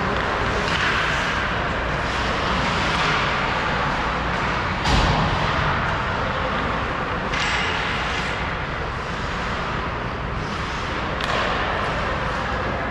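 Ice hockey play on a rink: a steady wash of game noise, with one loud thump about five seconds in and sharper knocks near the eight- and eleven-second marks.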